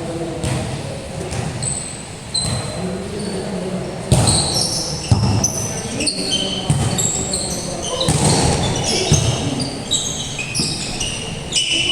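Basketball game on a court: sneakers squeaking sharply and repeatedly on the floor, with the ball bouncing and a few louder thumps about four and five seconds in.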